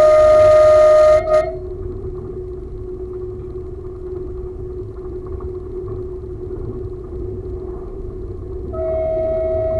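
Train horn sounding a long single-tone blast that breaks off about a second in, then the steady running rumble and hum of the railcar on the track. A second horn blast starts near the end, a warning as the train nears an ungated farm-track level crossing.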